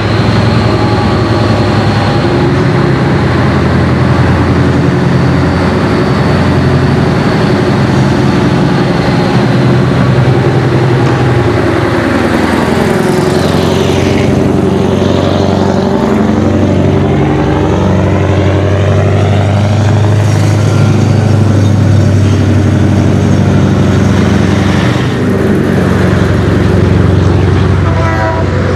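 Scania 143M Torpedo truck's 14-litre V8 diesel on an open, straight-through exhaust pipe, running loud as the truck drives by. The sound swells and sweeps as the truck passes close about halfway through.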